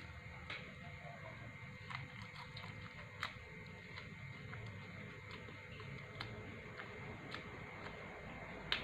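A person biting into and chewing a slice of pizza: faint mouth smacks and small clicks every second or so over a low steady background.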